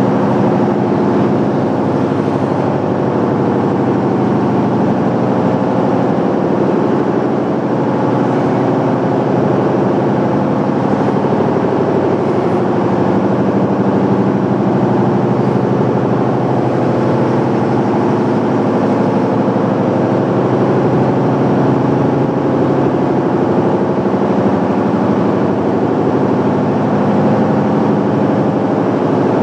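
Oxy-fuel cutting torch running with a loud, steady roar as it cuts a bad bearing off a crankshaft.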